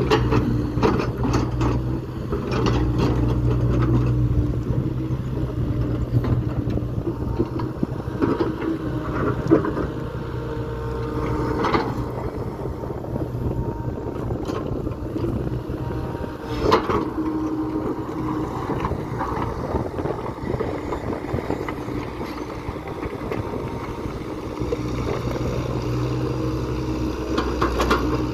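Kobelco excavator's diesel engine running under working load, with a whine that comes and goes as the arm and bucket move. The bucket digs through broken stone, with scraping and a few sharp knocks of rock, the loudest about ten, twelve and seventeen seconds in.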